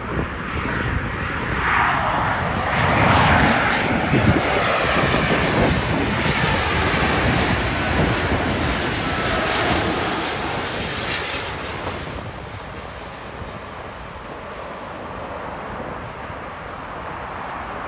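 Jet airliner passing low overhead on final approach to land. Its engine noise swells over the first few seconds, holds loud with a sweeping, shifting tone as it goes over, then fades away after about twelve seconds.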